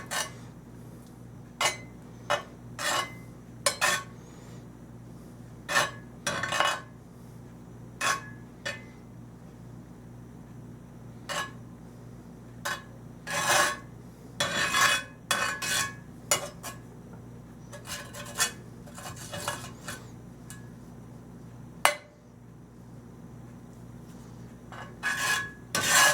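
Metal utensil scraping and clinking on a cast iron griddle in short, irregular strokes while butter is spread across it.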